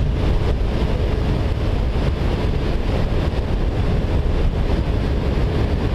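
Wind rushing over the microphone of a moving motorcycle, with the engine's steady drone underneath.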